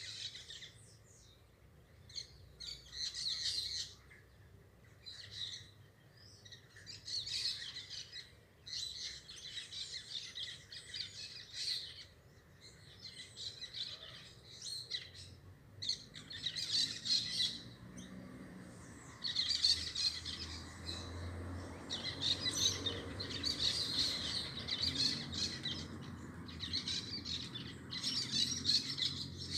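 A group of parakeets chirping and chattering in repeated bursts of rapid, high calls with short pauses between them. A low background rumble joins in about halfway through.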